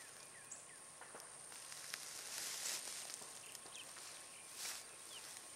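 Quiet countryside ambience: a faint steady hiss with a thin high whine, a few short bird chirps, and brief swells of rustling noise about two and a half and four and a half seconds in.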